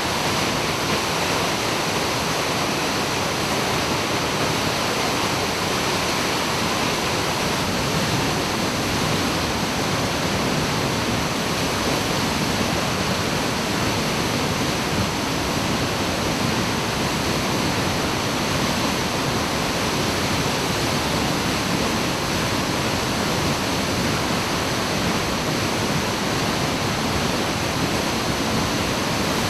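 Steady rushing roar of a 30 m plunge waterfall, water falling straight down and crashing into its pool, an even unbroken wash of noise.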